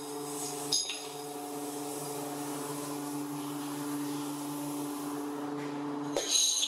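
A machine hums steadily while cast metal brake shoes clink against each other, once sharply about a second in. Just before the end the hum stops and a loud clatter of brake shoes follows.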